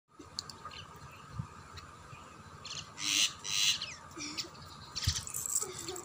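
Common mynas calling: scattered short chirps and whistles, with two loud harsh squawks about three seconds in.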